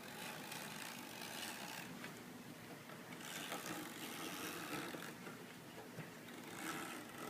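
Spline roller tool rolling along a window screen frame, pressing rubber spline and mesh into the channel: a faint, uneven grinding and rustling that swells a few times.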